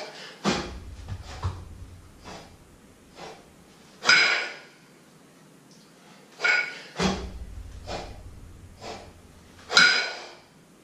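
Sharp, forceful breaths of a man lifting two kettlebells in repeated jerks, loudest a little after four seconds and near the end. Twice, about half a second in and again about seven seconds in, a dull low thud sounds.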